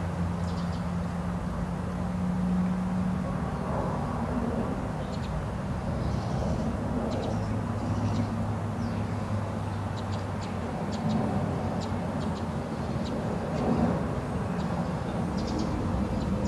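Steady low outdoor hum, like distant traffic or a running motor, with short high bird chirps scattered throughout.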